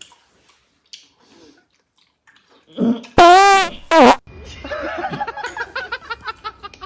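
Fart sound effect: a loud, long pitched blat with a wobbling pitch about three seconds in, then a second short one. It is followed by stifled laughter.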